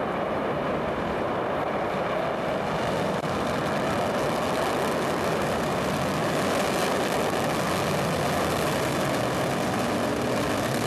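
Steady, even rumble of a Soyuz rocket's engines during liftoff and climb, under full thrust.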